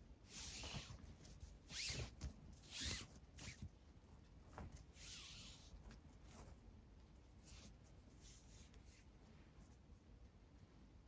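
4 mm nylon paracord being pulled through knotted cord loops, making several short swishing rubs in the first half, then only faint handling.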